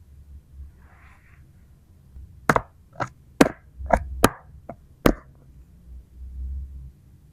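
Small plastic toy pieces tapped against a hard surface: about seven sharp taps in quick, uneven succession, after a brief soft rustle.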